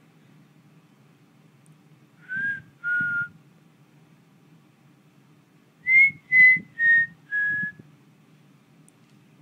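A person whistling short notes to call a cat. First come two notes about two seconds in, then after a pause four more that step down in pitch.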